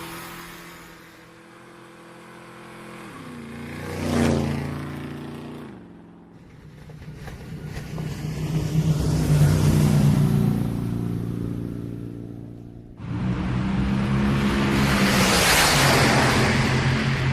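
Motor vehicle engines heard in a string of short, abruptly cut segments. About four seconds in, one passes close by, its pitch dropping as it goes. Another engine then builds up and runs loud, and after a sudden cut a third runs loud near the end.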